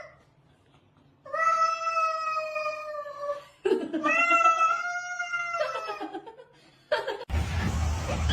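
A cat giving two long, drawn-out yowling meows of about two seconds each, one right after the other, with a fainter third call trailing after; a steady noisy background comes in suddenly near the end.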